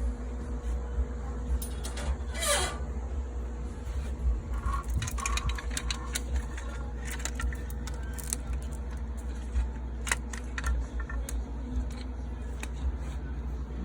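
Hand work on a car engine: scattered light metal clicks and rattles, with one sliding scrape about two and a half seconds in, over a steady low hum.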